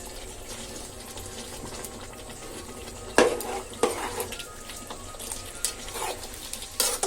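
Tamarind-water gravy sizzling in a pressure cooker pot with a steady hiss, then a metal ladle stirring and clanking against the pot several times from about three seconds in.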